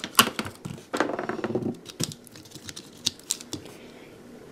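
Small plastic wire connectors being pulled off a circuit board and the plastic housing being handled: a quick run of sharp clicks and taps that dies away about three and a half seconds in.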